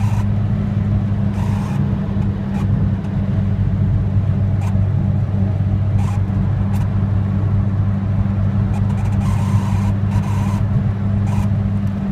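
Volkswagen Golf G60 cabin at over 100 km/h: the supercharged four-cylinder engine drones steadily over road noise, with short clicks or rattles coming irregularly several times, the strange dashboard noise that appears at that speed.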